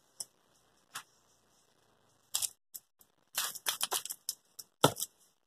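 Trigger spray bottle spritzing cleaner onto a steam iron's metal soleplate: one spritz about two seconds in, then a quick run of several short sprays, and another near the end.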